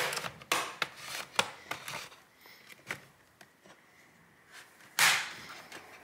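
Plastic bottom cover of a Dell Inspiron 15 5500 laptop clicking and snapping as a plastic pry tool is worked along its edge to release the clips, which are holding stubbornly. There is a quick run of sharp clicks in the first two seconds, then a few softer ticks, then a louder, longer crackle about five seconds in.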